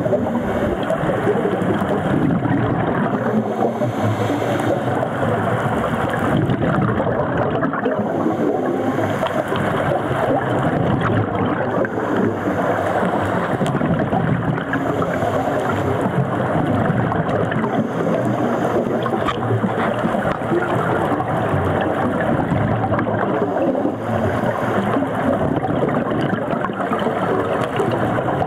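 Underwater noise on a scuba dive: a steady, muffled rushing and gurgling of water, picked up through the sealed body of a waterproof compact camera.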